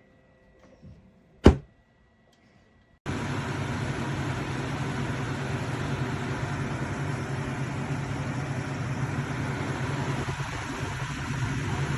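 A single sharp click, then about three seconds in a steady whooshing hum with a low drone starts suddenly: a Zeroteek 9000 BTU portable air conditioner's fan and compressor running.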